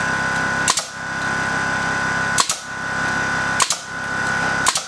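Pneumatic finish nailer firing four times, each a sharp crack as it drives a nail into a wooden board, spaced about a second apart. Underneath runs the steady hum of a Honda 1000i generator.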